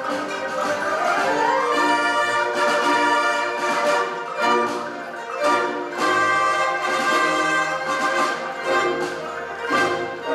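A Chinese traditional orchestra playing full ensemble: bowed erhu and cellos with plucked lutes and dulcimer. A rising sweep comes about a second in, and several sharp accented strikes follow later on.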